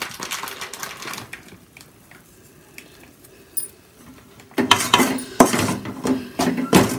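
Metal perforated ladle scraping and clanking against an aluminium kadai while stirring thick roasted gram burfi dough. Light scraping at first, a quieter pause, then from about two-thirds of the way in a fast, louder run of strokes, about four a second.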